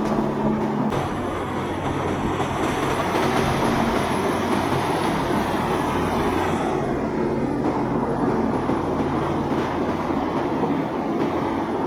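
Boat engines running steadily with a low drone, over a rush of water and wind noise.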